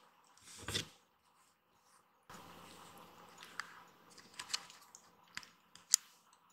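Small kitten moving past a cardboard box and walking on a vinyl floor: a short rustle about a second in, then a few sharp light clicks of claws and paws, the loudest near the end.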